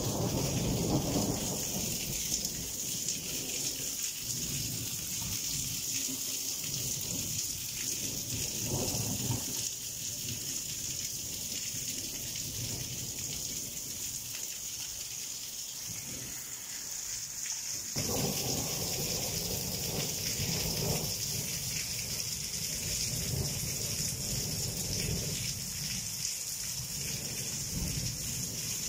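Rain falling steadily, a constant hiss, with a low rumbling that swells and fades at the start, again about nine seconds in, and again for several seconds past the middle.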